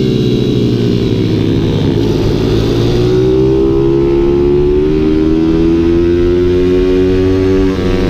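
Pit bike supermoto engine heard close up from the bike on track: the revs ease a little through a corner, then rise steadily for about five seconds under acceleration. Near the end the pitch drops suddenly with a gear change.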